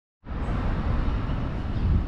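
Outdoor city street noise: a steady rumble of traffic mixed with wind on the microphone, starting a moment in.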